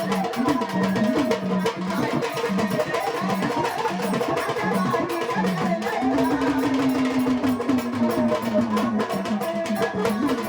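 Music from a Marathi devotional song: a wavering melody line, held on one long note about two-thirds of the way through, over steady drum and percussion.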